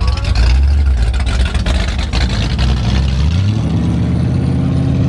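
Early-1960s Ford Falcon convertible's engine pulling away from a standstill, a loud low exhaust note that drops away a little over three seconds in. Another vehicle's engine then idles steadily.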